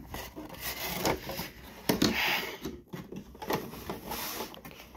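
Cardboard packaging scraping and rustling as a toy truck is slid out of its box, with irregular small knocks and a louder scrape about two seconds in.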